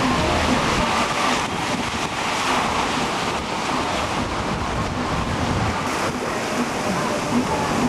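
Ocean surf breaking steadily, with wind rushing across the microphone.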